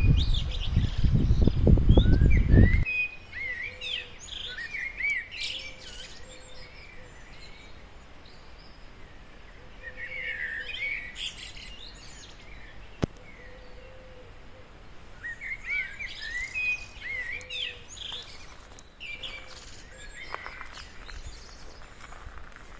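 Wild songbirds chirping and singing in several bursts of short, quick notes. A loud low rumble on the microphone lasts for the first three seconds or so, and there is a single sharp click about halfway through.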